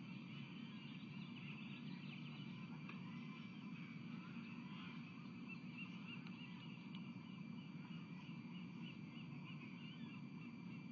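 A bird giving a series of short, high chirps, about two a second, starting about four seconds in, over a steady low background rumble.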